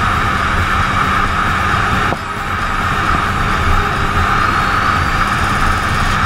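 Sport motorcycle at speed, heard from a camera on the rider: steady engine and wind noise, with a brief dip about two seconds in.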